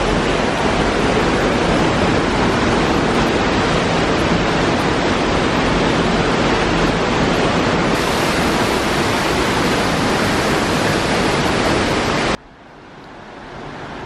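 Steady rush of a waterfall and river in a narrow rocky gorge. About twelve seconds in it drops suddenly to a much quieter rush, which slowly grows a little louder.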